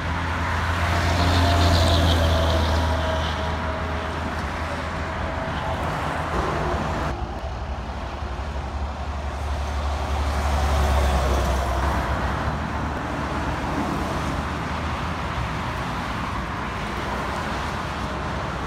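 Road traffic moving through an intersection: cars and heavy diesel trucks driving by under a steady low engine hum. Two louder passes swell and fade, one about two seconds in and one about eleven seconds in.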